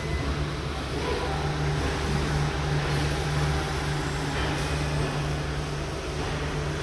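Steady low hum of industrial machinery in a laser-welding cell, with an even background noise and a few faint steady tones.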